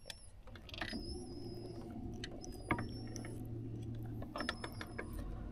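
Soft clicks and handling noise from hands unhooking a crappie from a jig, over a low steady hum.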